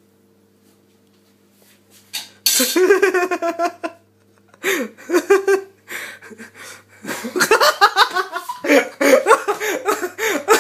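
Young men laughing hard in bursts, starting about two seconds in after a near-quiet moment, with short breaks between the fits of laughter.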